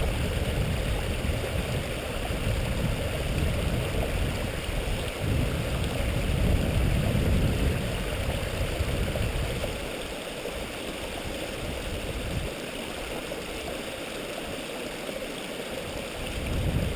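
Stream water running over rocks, a steady rushing and gurgling. A low rumble underneath falls away about ten seconds in.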